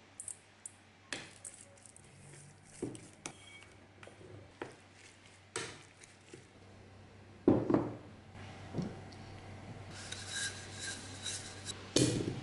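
Kitchen prep sounds: a wooden spoon scraping and knocking in a bowl while mixing seasoned meat cubes, with scattered clicks and a couple of louder knocks. Near the end, a clunk as food is pressed into a clay pot.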